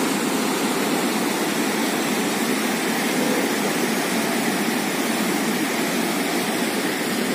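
Steady rush of turbulent floodwater pouring out through a river dam's open sluice gates and churning in the channel below, with the dam discharging high water.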